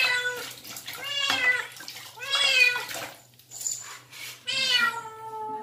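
Kitten meowing while being held in a basin of bath water: four meows about a second apart, the last one longer.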